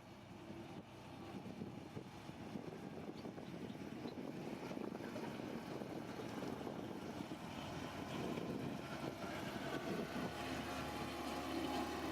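Heavy diesel engine of earthmoving machinery running, growing steadily louder.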